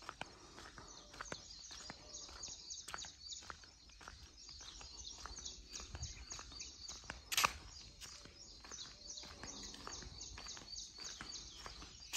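Birds chirping steadily: short, high, falling chirps repeating several times a second. Footsteps on paving run underneath, with one sharp click about seven and a half seconds in.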